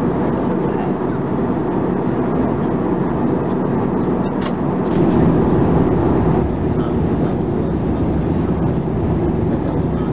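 Steady jet airliner cabin noise heard from a seat beside the wing of an Airbus A320-214 during descent: engine hum and rushing airflow, heaviest in the low range. It swells slightly for a second or so around the middle, and there is a short click about four seconds in.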